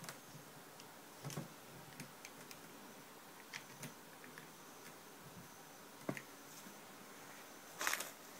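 Quiet room with scattered faint clicks and ticks, and a short rustle near the end: handling noise from a handheld camera.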